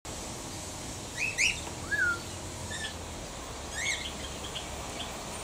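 Small aviary birds chirping: a few scattered groups of short chirps and one slurred whistle, over a steady low background hum.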